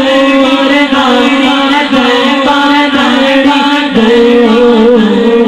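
Naat singing: voices carrying a melodic line over a steady, held low drone.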